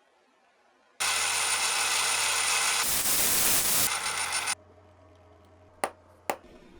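A metalworking tool runs with a loud, steady hissing noise over a low hum. It starts abruptly about a second in and cuts off suddenly about three and a half seconds later, then two sharp clicks follow.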